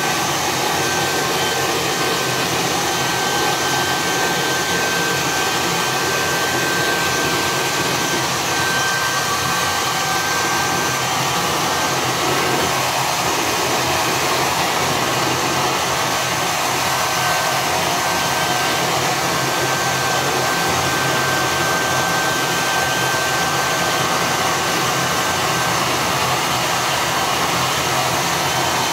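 Handheld hair dryer running steadily: a continuous rush of blown air with a thin, steady whine.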